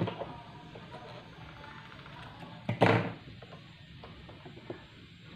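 Work at an electric sewing machine: fabric being shifted under the presser foot, with small mechanical clicks and one loud knock about three seconds in.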